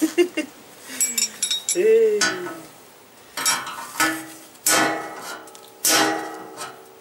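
Hammer strikes on an unhardened 8 mm steel drill rod, driving the old bearing race out of a steering head tube. First a quick run of light taps, then from about halfway harder blows roughly once a second, each with a short metallic ring. The race is coming out slowly.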